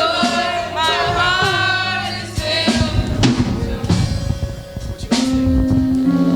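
Youth choir singing a gospel song with instrumental accompaniment: the voices hold wavering notes, then drop out about halfway while the instruments carry on for a couple of seconds before a new held chord comes in.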